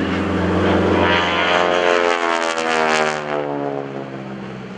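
SNJ-5 Texan's Pratt & Whitney R-1340 Wasp nine-cylinder radial engine and propeller running hard in a dive. Its pitch falls from about a second and a half in as the aircraft sweeps past, then the sound fades as it moves away.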